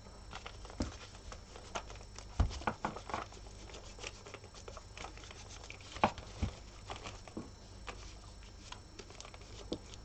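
Irregular small knocks, clicks and crinkles as hands turn and handle a ball-jointed doll wrapped in cling film and painter's tape, the sharpest knock about two and a half seconds in.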